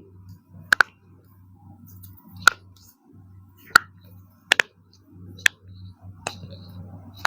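Sharp clicks during a spinal manipulation treatment, roughly one a second and twice in quick pairs, over a faint steady low hum.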